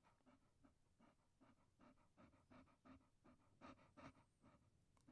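Dog panting faintly in quick, short breaths, about three to four a second.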